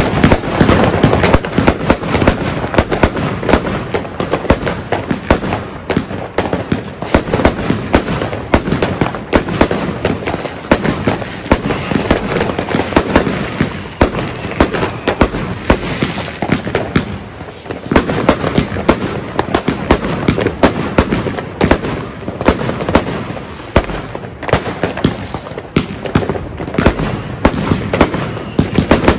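Argento Tarantula firework battery firing: a dense, continuous barrage of rapid bangs and crackles, many shots a second with hardly a break.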